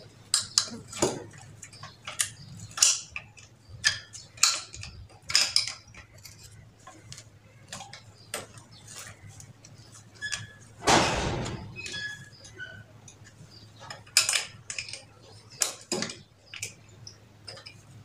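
A metal spanner clinks and clicks irregularly against the casing nuts of a monoblock water pump as they are loosened, with one longer scrape of metal on metal about eleven seconds in.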